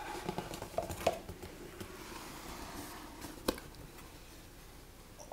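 Faint handling of a cardboard mailer box: soft rustles and scrapes as its lid is lifted open, with one sharp click about three and a half seconds in.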